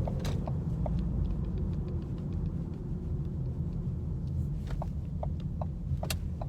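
A person's single sharp hiccup near the end, over a steady low rumble with faint scattered ticks.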